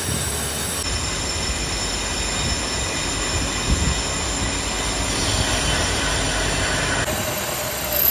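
Drill press running steadily, a continuous mechanical noise with a faint high whine, getting louder near the end as the bit cuts into the brake disc through the jig plate.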